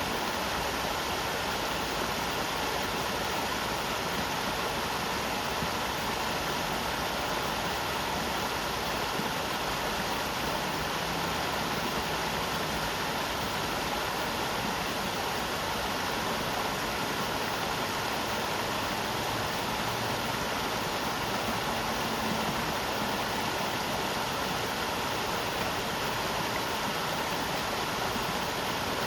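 River water flowing, a steady, unbroken rush of water.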